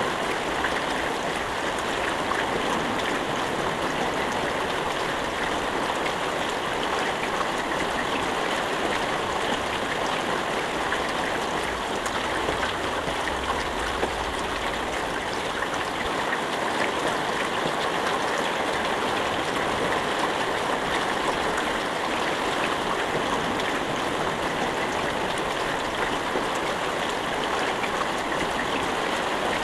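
Steady rain with no thunder, an even rush of falling water with fine scattered drop ticks.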